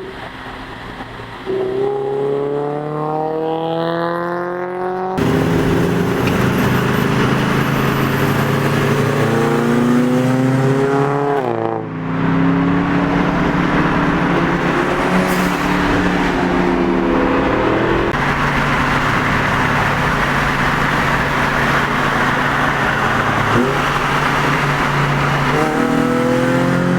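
Car engines accelerating hard, pitch climbing steadily through the revs in repeated pulls. Several separate clips follow one another with abrupt cuts between them.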